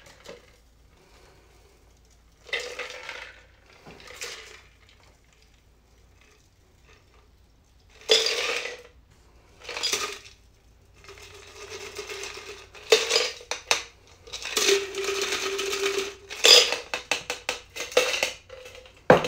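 Shaken cocktail poured from a metal shaker through a Hawthorne strainer and a fine mesh strainer into coupe glasses: ice rattling and clinking against the metal in short bursts, with a steady trickle of liquid as it pours. Near the end comes a quick run of sharp metallic clicks.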